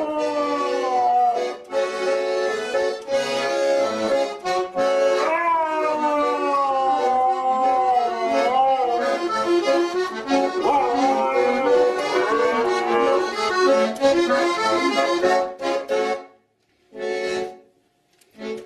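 A garmon (Russian button accordion) plays a tune while a husky-type dog howls along in long howls that slide down in pitch. The playing stops about sixteen seconds in, followed by two brief bursts of notes.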